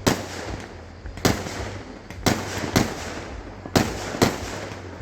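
Aerial firework shells bursting in quick succession: six loud booms about half a second to a second apart, each trailing off in a rumbling echo.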